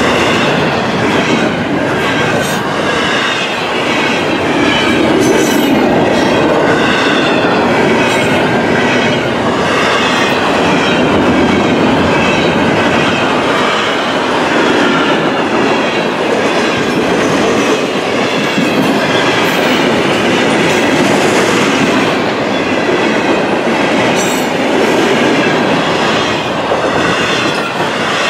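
Double-stack intermodal freight cars rolling past at track speed: a loud, steady noise of steel wheels on rail.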